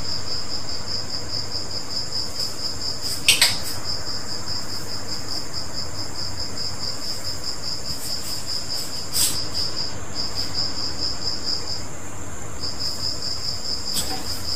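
An insect chirping in a fast, even, high-pitched pulse at one pitch, breaking off briefly twice past the middle. A sharp click comes a few seconds in and another past the middle.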